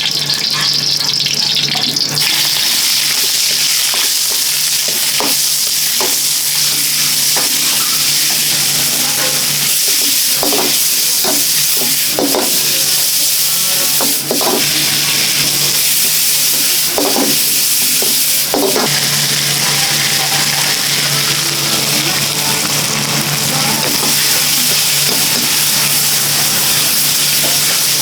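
Fried rice sizzling as it is stir-fried in a wok over a strong burner, with a steady hiss and a low steady hum under it. A run of short clanks from the ladle against the wok comes in the middle.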